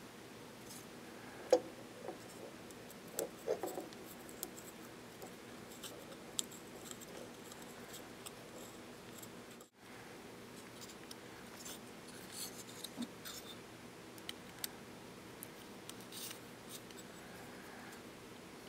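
Small clicks and taps of carbon-fibre plates and metal gimbal parts being handled and fitted together by hand. There is one sharp click about a second and a half in and a few more around three and a half seconds, over a faint steady hum.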